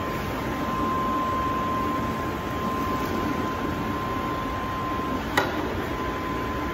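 Electric inflatable blower running steadily, a constant rush of air with a thin steady whine, as it inflates an inflatable game. A single sharp click about five and a half seconds in.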